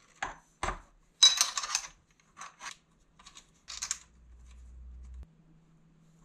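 Clicks and metallic clinking and rattling from a mountain-bike handlebar, stem clamp and brake hoses being handled as the bar is set into the stem. The loudest is a jingling rattle about a second in, and a low hum follows briefly around the four-second mark.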